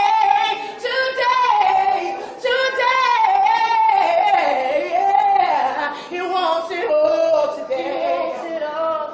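A woman singing unaccompanied, in long held notes that slide and bend up and down in pitch.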